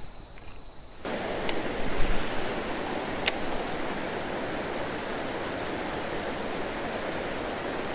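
River water rushing over rocky shoals, a steady hiss that starts suddenly about a second in; before that only a faint high insect buzz. A couple of faint clicks sound over the water.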